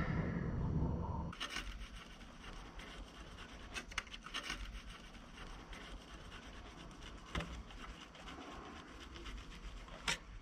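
A thin hand blade scraping and cutting at old silicone sealant along a wooden window frame set in brick, with scattered small clicks. A low rumble stops suddenly about a second in.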